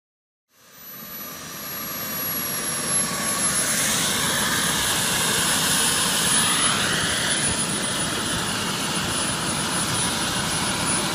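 Model jet turbine (Jet Muntz) in a Boomerang Elan RC jet running on the ground, a steady rushing noise with a thin very high whine that sinks slightly in pitch. The sound fades in about half a second in.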